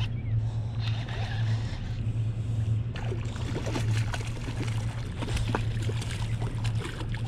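A hooked striped bass splashing and thrashing at the water's surface beside a kayak as it is reeled in. Short splashes and ticks come in the second half. A steady low hum runs underneath throughout.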